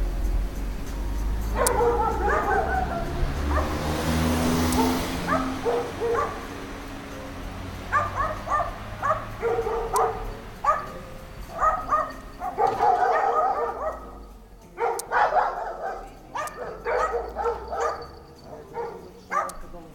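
A small dog barking over and over in quick runs of short, sharp yaps.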